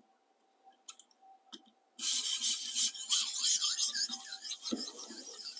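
A 400-grit sharpening stone rasping along the edge of a high-carbon stainless slicer blade in quick repeated strokes, starting about two seconds in after a few light clicks. These are light deburring strokes taking the burr off the edge.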